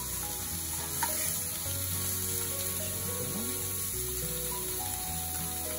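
Sea trout fillets sizzling steadily as they sear in hot olive oil in a non-stick pan, with a light click about a second in.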